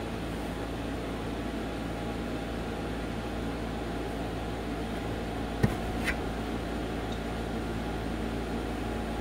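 Steady machine-like whir filling the room, with two short clicks about half a second apart a little past halfway.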